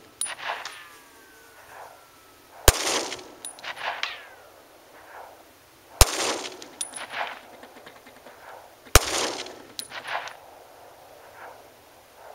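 Glock 20 10mm Auto pistol fired three times, about three seconds apart, each shot a sharp report followed by a rolling echo and a few lighter clinks.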